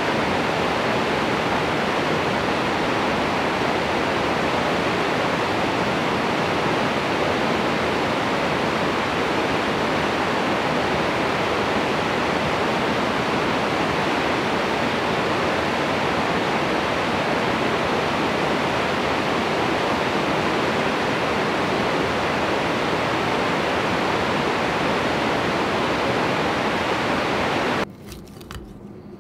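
Whitewater rapids of a small river waterfall rushing, a steady dense roar of water. About a second before the end it cuts off suddenly to a much quieter room with a few light clicks.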